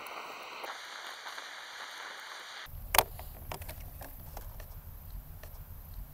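Hard handling knocks and clicks as carbon-fibre landing gear is fitted to a foam RC plane fuselage: a click at the start, then one sharp knock about three seconds in, with light ticks between.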